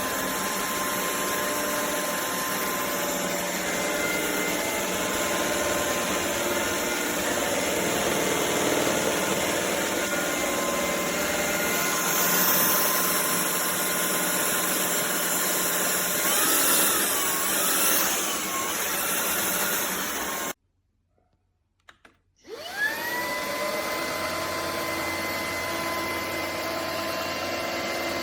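Shark PowerPro cordless stick vacuum's motor running with a steady whine and rushing air. About 20 seconds in it cuts off, and after about two seconds of silence it spins back up with a rising whine.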